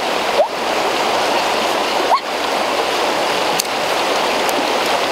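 Fast-flowing river rushing steadily over rapids, with a couple of short rising chirps.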